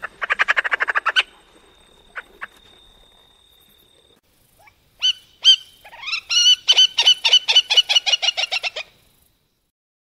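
Three-banded courser calling. It starts with a quick chattering rattle, gives two short notes about two seconds in, then two clipped notes from about five seconds. These run into a rapid series of repeated calls, about six a second, that stops about nine seconds in.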